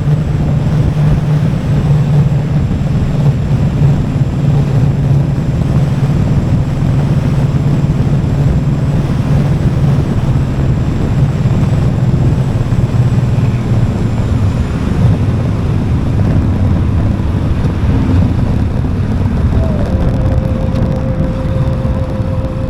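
Motorcycle riding along a road at a steady speed: a low, steady engine hum with wind and road noise. A thin, steady higher tone joins near the end.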